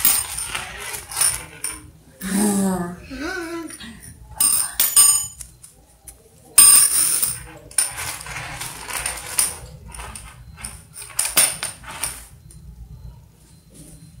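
Handling noises on a concrete floor: scattered clicks and clinks of a small metal padlock, and rustling of a plastic bag, with a louder noisy burst about six and a half seconds in. A short gliding voice is heard about two seconds in.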